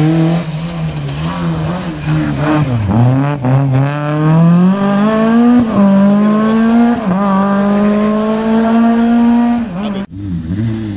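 Small rally hatchback's engine: the revs drop as it slows for the turn, then it accelerates hard away, the pitch climbing in each gear with two upshifts. The engine sound cuts off abruptly shortly before the end.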